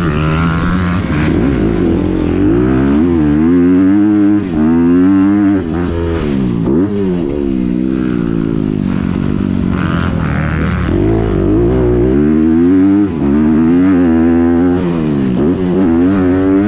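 Motocross dirt bike engine ridden hard, its pitch rising and falling over and over as the rider accelerates, shifts and backs off the throttle, with a few brief throttle cuts.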